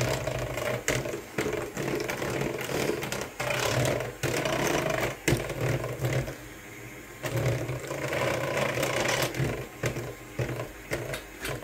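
Handheld electric mixer running on a low speed, its beaters whirring through thick cake batter in a stainless steel bowl, with scattered knocks of the beaters against the bowl. The motor drops away for about a second past the middle, then runs on.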